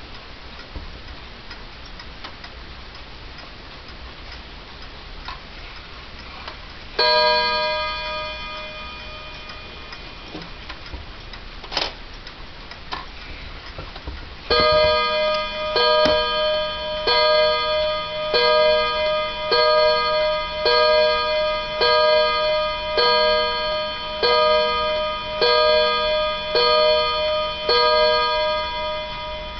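Linden 31-day pendulum wall clock ticking faintly, then striking on its gong as its hands are turned by hand. A single strike a third of the way in rings on for several seconds. From about halfway comes an even run of strikes about one a second, the hour count as the hands reach twelve.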